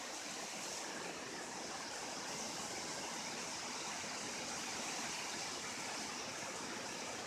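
Heavy rain pouring down steadily, an even hiss with no breaks or thunder.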